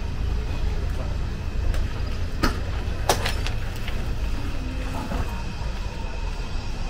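Town street ambience: a steady low rumble of traffic, with two sharp knocks about two and a half and three seconds in.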